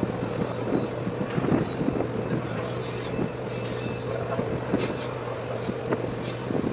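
Boat diesel engines of the tugboat and mooring launch running steadily, a constant low hum under a rushing noise, with wind gusting on the microphone.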